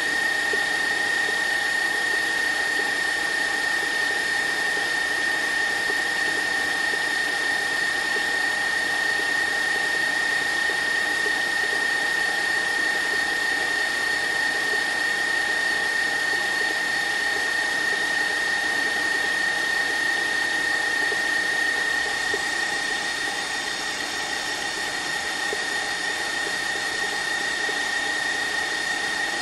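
Electric stand mixer running at a steady speed: a constant high motor whine over an even mechanical noise, dropping slightly in level a little over twenty seconds in.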